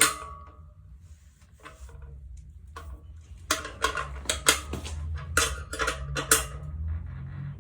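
Metal bicycle parts and tools clinking and rattling in a series of sharp clicks, busiest from about three and a half seconds in.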